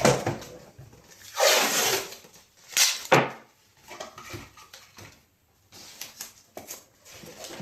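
Blue painter's tape pulled off its roll in one long rip lasting about a second, followed by two short sharp tears, then faint handling of a cardboard tube and plastic hair dryer.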